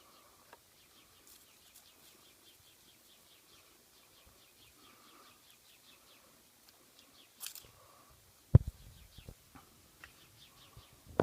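Faint, rapid chirping, about four to five chirps a second, under a quiet background. A short rustle comes about seven seconds in, then two sharp thumps, one more than a second in before the end and one right at the end.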